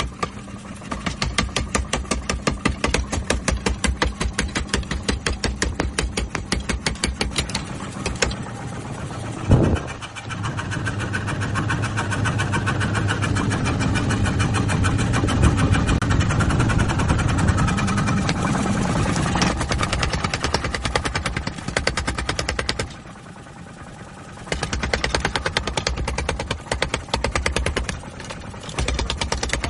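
Mechanical power hammer running, pounding in a fast, even rhythm of several blows a second, with a brief quieter pause near the end.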